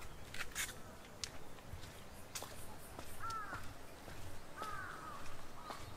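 Crows cawing, about three arched calls in the second half, with a few sharp clicks before them.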